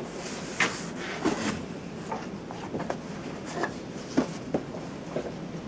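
Irregular knocks, clicks and rustles of a shipping box being opened and its contents handled.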